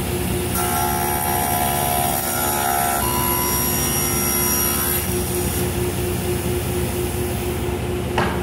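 Table saw running steadily and ripping a hardwood board lengthwise. The blade's pitch shifts and a higher whine joins it while the board is fed through, from about half a second in to about five and a half seconds, then the saw spins free.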